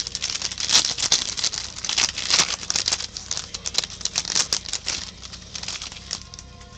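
Shiny plastic trading-card pack wrapper crinkling as it is torn open by hand and the card pulled out: dense crackling for about five seconds, then dying down.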